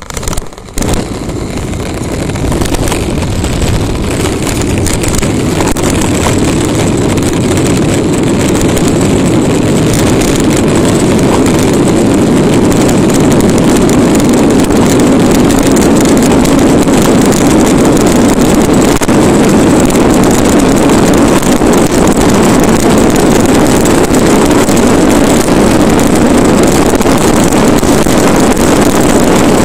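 Hard plastic wheels of a Bobby-Car ride-on toy rolling fast on coarse asphalt, a steady grinding rolling noise that grows louder over the first ten seconds or so as it gathers speed downhill, then holds. A few knocks come in the first second.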